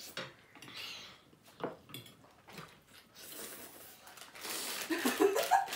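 Chopsticks and a fork clicking and scraping against plates and bowls while noodles are eaten, with soft eating noises; a voice starts near the end.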